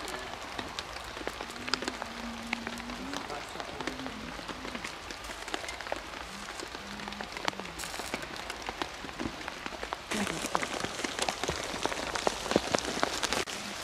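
Steady rain falling on open umbrellas, with many separate drop taps; it grows louder about ten seconds in.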